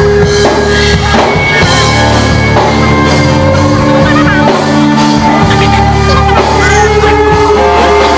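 Loud rock music with singing over drums and guitar, with long held notes.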